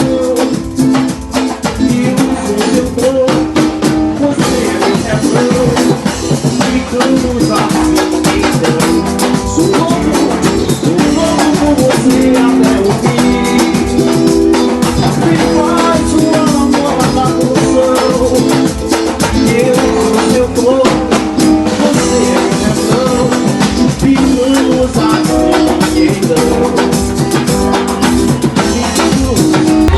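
Loud band music driven by dense drumming, with guitar and a voice singing.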